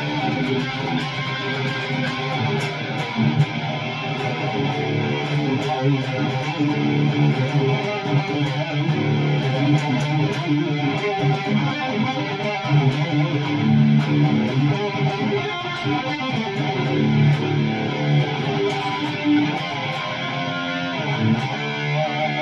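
Electric guitar played through a Line 6 Helix LT amp modeller, on an 80s-inspired rhythm tone.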